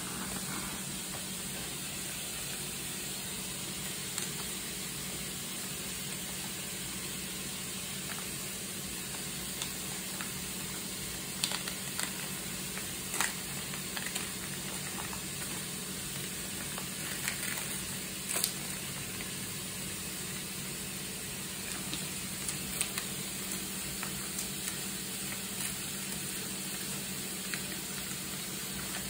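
Steady hiss of background noise with a low hum, broken by short crackles and rustles of paper and tape as a rolled, taped paper card is pulled open by hand, mostly in the middle of the stretch.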